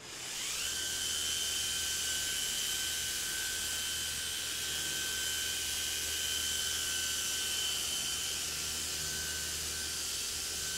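Small handheld polisher with a foam pad spinning up at the start, its whine rising in pitch, then running at a steady high whine while polishing car paint.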